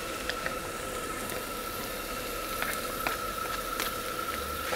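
Fried rice sizzling in a wok over a gas burner, a steady hiss broken by a few light clicks and scrapes of the spatula against the wok.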